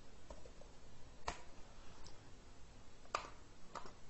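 A handful of separate, irregularly spaced clicks from a computer mouse and keyboard, faint, with the sharpest about a second in and about three seconds in.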